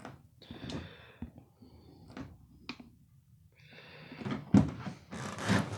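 Handling noise: scattered light clicks and rustles, then louder knocks and clatter in the last two seconds.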